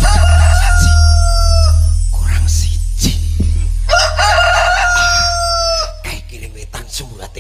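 A man crowing like a rooster into a microphone: two long cock-a-doodle-doo calls, one at the start and another about four seconds in, each held on one pitch and dropping at the end. It is a mock cockcrow standing for daybreak.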